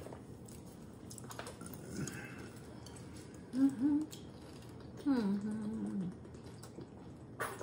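Quiet eating sounds, small mouth and food clicks, with two short closed-mouth hums: a brief one about three and a half seconds in and a longer held one about five seconds in.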